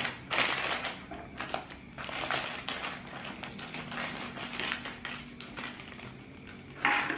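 Small plastic snack packet being handled, torn open and crinkled, in several short rustling bursts.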